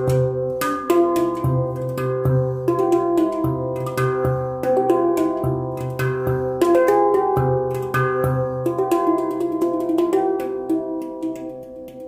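Tala handpan tuned to the Onoleo scale in C, played with the fingers: a flowing pattern of quick struck notes that ring on, over a deep low note that returns about every second and a half.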